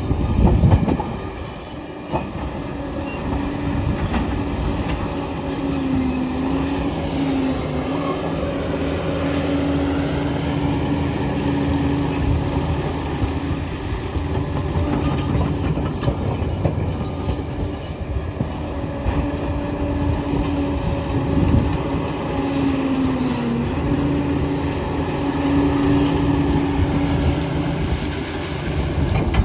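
Liebherr PR 746 crawler dozer working: its engine runs steadily with a whine that dips in pitch twice under load, over the clanking and squeal of its steel tracks. A loud knock comes near the start.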